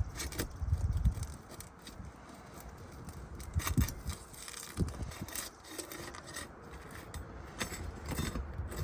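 A roofing pry tool scraping and clicking as it is worked under roof shingles to break their seal, with a few heavier knocks. The shingle is stuck down hard.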